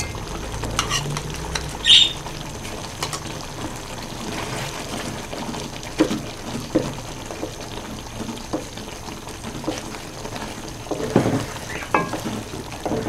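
Chicken karahi sizzling in a metal pot while a wooden spatula stirs through it, with butter just added melting in. Scattered knocks and scrapes of the spatula against the pot, the loudest about 2 seconds in and around 11 to 12 seconds.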